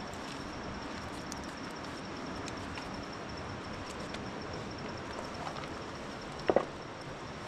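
Steady outdoor hiss with a faint, thin high tone, a few small clicks, and a sharp double knock about six and a half seconds in.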